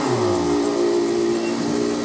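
A motor dropping in pitch during the first half second, then running steadily with a hiss.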